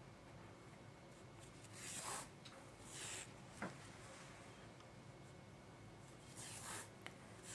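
Wool yarn drawn through knitted stitches with a sewing needle: three short, soft swishes, with a small click between, over near silence.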